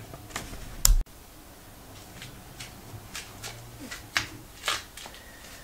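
A single short, heavy thump about a second in, then quiet room tone with a few faint clicks and rustles, like small handling noises.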